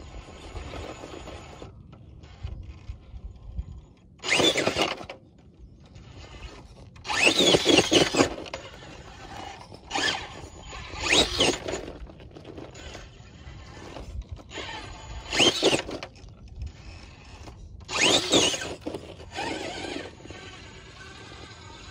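Radio-controlled rock crawler's electric motor and gear drive whining in repeated short bursts of throttle, the pitch rising and falling with each burst, between quieter stretches.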